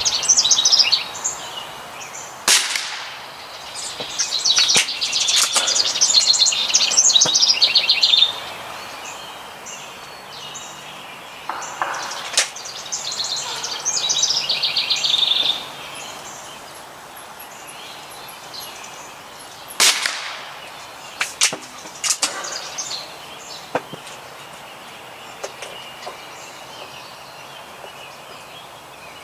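Two sharp cracks from a .22 Gamo Bone Collector break-barrel air rifle firing, about seventeen seconds apart, with a songbird singing fast trills in between.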